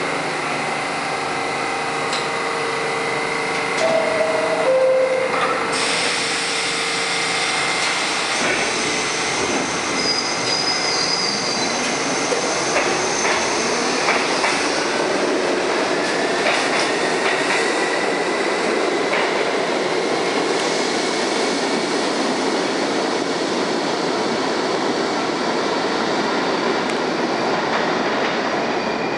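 R68A subway train departing a station: a two-note falling door chime about four seconds in, the doors closing, then the train pulling out with a whine from its traction motors that climbs slowly in pitch over the running noise of the wheels on the rails as it accelerates away.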